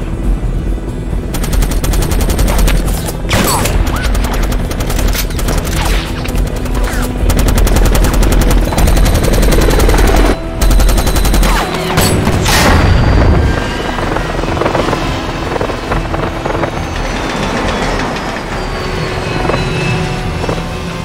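Helicopter-mounted machine gun firing long, rapid bursts over the helicopter's rotor for most of the first ten seconds. A heavy low blast follows at about twelve seconds, then the noise settles to a lower rumble under dramatic film score.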